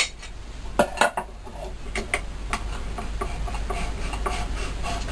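Sharp clicks and knocks of a wooden plank and the metal clamping vise of a bench drill press being handled and set in place, loudest at the start and about a second in.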